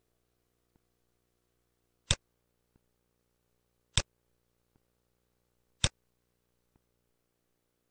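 Three sharp computer mouse clicks about two seconds apart, with fainter ticks between them, over a faint steady hum.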